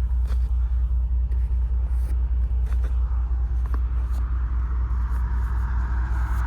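Truck's diesel engine idling with a steady low throb, with a few faint footsteps crunching in snow. A rushing noise builds from about halfway through.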